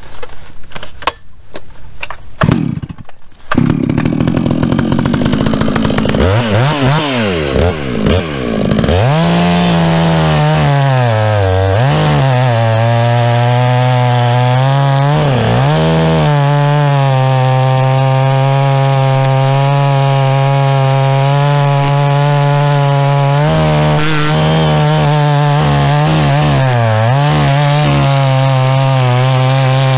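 Holzfforma G660 two-stroke chainsaw with a Bulletproof Performance aftermarket muffler, cutting into a large tree trunk. After a few seconds of uneven noise the engine revs up to full throttle and holds a steady high pitch, dipping briefly about three times and recovering as the chain bites into the wood.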